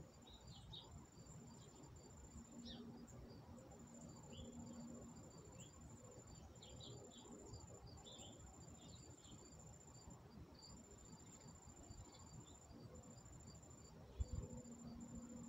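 Faint outdoor ambience: a high, thin insect trill, typical of a cricket, running in long stretches with short breaks, with scattered short faint chirps.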